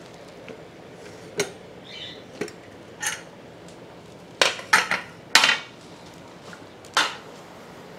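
Sharp metallic clinks and knocks of a stainless steel Bergner pressure cooker and its lid being handled, about eight in all, several in quick succession just past the middle, as the cooker is opened after its last whistle.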